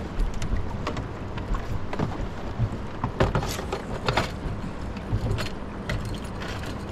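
Small boat on choppy river water: a steady low rumble with water slapping against the hull in several short, sharp knocks.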